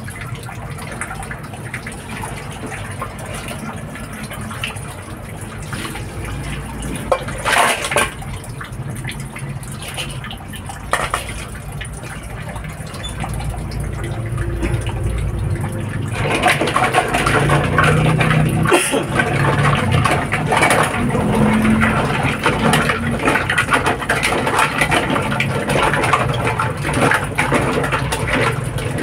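Tap water running into a bowl of green mussels in a sink as they are rinsed by hand, the flow getting louder about halfway through. A couple of short knocks, likely shells or the bowl, come earlier.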